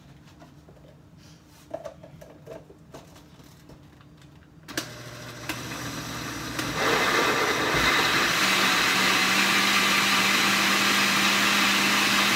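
A few light knocks as the blender jar and lid are handled. Then a countertop blender is switched on about five seconds in, runs on a lower speed, and steps up to a louder, higher speed about two seconds later, where it holds with a steady hum. It is blending the milk, cream and Knorr Suiza for the pasta sauce.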